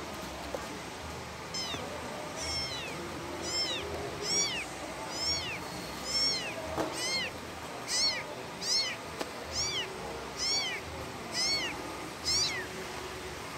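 A very young kitten meowing over and over, about thirteen thin, high mews that each rise and fall in pitch, spaced a little under a second apart, starting about a second and a half in: a kitten calling for its mother.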